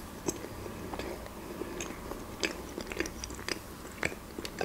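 A person chewing a soft pâté sandwich on black bread: many small, irregular mouth clicks and smacks.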